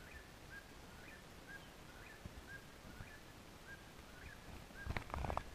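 Eastern whip-poor-will singing its repeated whip-poor-will song, about one phrase a second, faint. Near the end, a few louder sharp clicks.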